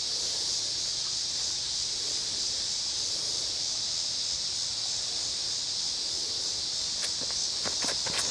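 Cicadas droning steadily in the surrounding trees, a continuous high buzz. Near the end come a few short scuffs of footsteps on the concrete tee pad as the disc golfer starts his run-up.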